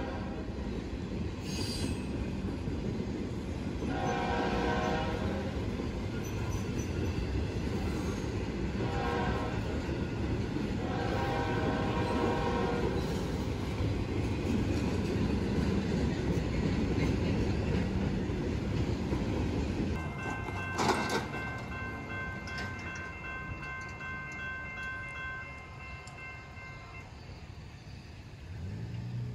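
Intermodal freight train rolling past a grade crossing: a steady rumble of wheels and cars on the rails, with pitched tones sounding several times for a second or so. About two-thirds of the way through the rumble drops away and steady high ringing tones hold for several seconds, then stop.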